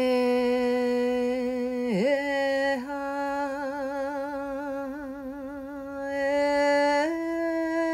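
A woman's voice chanting long held notes without words, a meditation toning. One note is held for about two seconds and breaks briefly, then a slightly higher note wavers in pitch and steps up again near the end.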